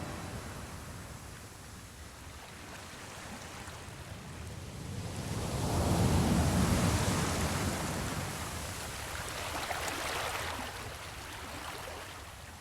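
Ocean surf breaking on a beach: a steady wash of waves that swells loudest about six seconds in and again around ten seconds.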